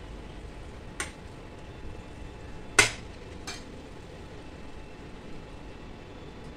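Steel spoon knocking against a steel cooking pan: three sharp clinks, the loudest a little under three seconds in, over a faint steady background.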